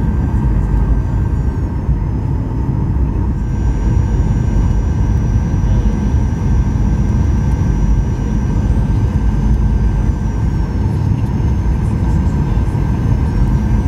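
Cabin noise of a Boeing 737-800 on short final approach, heard at a window seat over the wing: a dense rumble from the CFM56 turbofan and airflow. Over it runs a steady high engine whine that steps up in pitch a few seconds in and shifts again about two-thirds of the way through, as thrust is adjusted.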